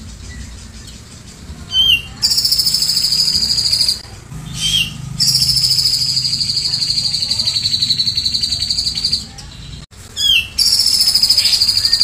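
Cucak jenggot (grey-cheeked bulbul) singing long, high, rattling trills, three in a row, each opened by a short slurred note. These are the 'tembakan' shots of a cililin that the bulbul has learned to mimic.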